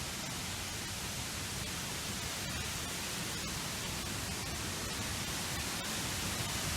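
Steady rushing of a waterfall, growing slightly louder.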